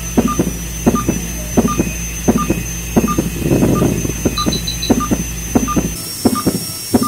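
Dental operating-room equipment during a dog's dental treatment: a steady low motor hum with short high beeps repeating evenly, about three every two seconds, and regular soft clicks. The hum stops about six seconds in.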